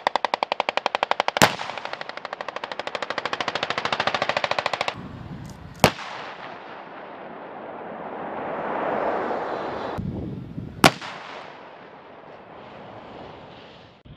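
Machine-gun fire: a long, rapid, evenly paced burst of about five seconds with one louder crack inside it. Two more single sharp shots follow, about five seconds apart, with a swelling and fading rush of noise between them.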